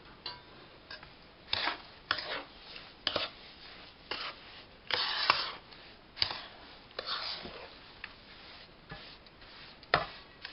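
Steel spoon stirring and scraping through roasted gram flour mixed with powdered sugar and chopped cashews in a kadhai: a series of uneven scrapes and scuffs, one longer, with a sharp knock of the spoon on the pan near the end.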